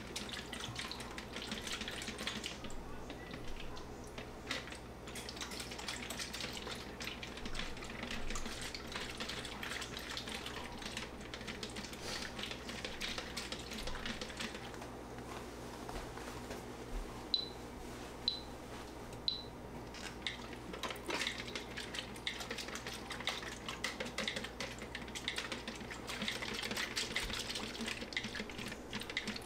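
Developer sloshing and rattling inside a plastic film developing tank as it is inverted over and over by hand during agitation. About two-thirds of the way through come three short high beeps a second apart, from the phone's development timer.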